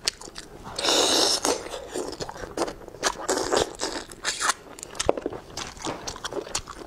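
Close-miked eating sounds of a person biting and chewing bullfrog meat and pulling it off the bones: wet mouth clicks and crunches, with a louder, longer stretch about a second in.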